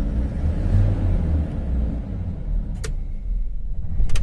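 Tata Ultra 814 truck's diesel engine idling smoothly just after start-up, heard from inside the cab as a steady low rumble. A faint sharp click comes about three seconds in, and a louder one just before the end.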